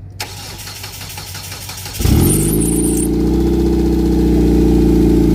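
A 2002 Hyundai Sonata engine cranks on its starter for about two seconds, then catches with a brief high squeal and settles into a steady, loud idle. This is the first start after burnt, fouled spark plugs were replaced and the oil changed.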